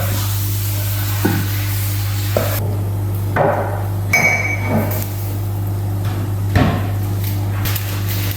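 A steady low hum with about seven irregular knocks and clatters of kitchen utensils over it, the loudest about two-thirds of the way through.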